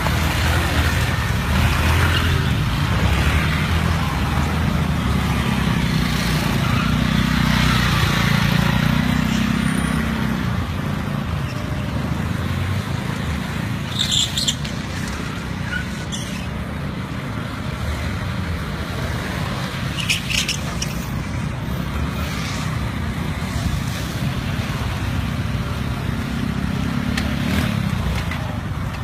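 Engines of small motorbikes running, louder over the first third, with two brief sharp noises about halfway through and again about six seconds later.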